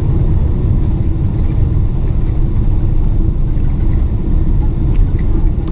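Boeing 777-300ER cabin noise around landing: a steady, loud low rumble with a few faint light ticks.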